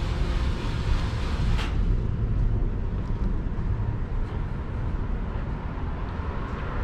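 Steady low rumble of background noise aboard the ship, with a single short click about one and a half seconds in.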